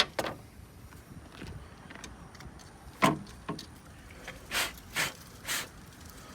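A sharp click and two knocks as the new ignition coil pack and tools are handled, then three short puffs of air about half a second apart as packaging debris is blown out of the coil pack.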